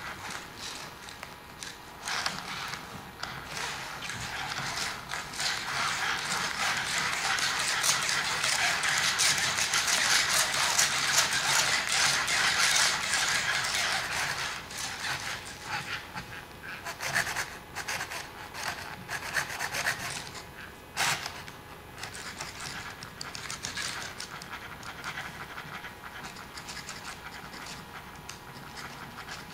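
Rubbing and scratching noise with many small clicks as a robot teddy bear moves its arms and body, its plush fur brushing close to the microphone. The noise swells to its loudest about halfway through, then eases back with a few sharper clicks.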